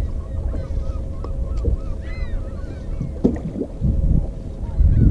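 Wind and water around an open fishing boat make a steady low rumble, with a faint steady hum under it. Scattered short bird calls come and go throughout.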